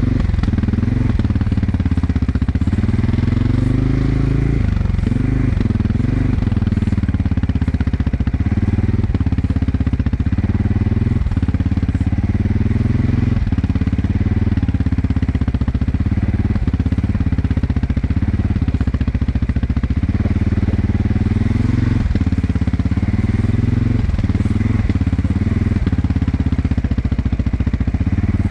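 CF Moto 520S ATV's single-cylinder four-stroke engine running while under way, its pitch rising and falling again and again as the throttle is opened and eased.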